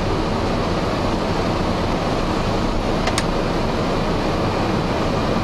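Boeing 757 flight deck at rotation: steady noise of the engines at take-off thrust mixed with the rush of air, with one brief click about three seconds in.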